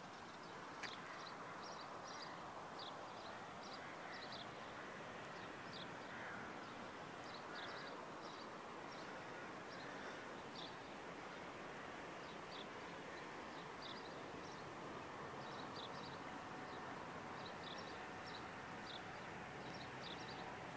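Faint outdoor ambience of small birds chirping in short, irregular high notes over a steady background hiss. About fifteen seconds in, a faint steady tone joins.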